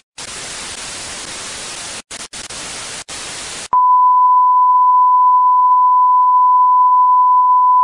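Television static, a steady white-noise hiss broken by a few short dropouts. About four seconds in it gives way to a loud, steady 1 kHz test tone of the kind that plays with a broadcast test card.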